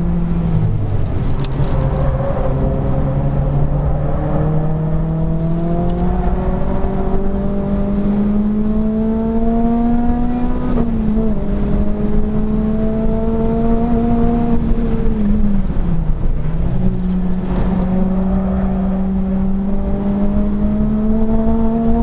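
A Renault Clio 3 RS's 2.0-litre four-cylinder engine heard from inside the cabin under hard acceleration on a race track, its pitch climbing slowly and steadily. The note falls back about halfway through, dips briefly again about three-quarters through, and climbs once more each time, over steady road and wind noise.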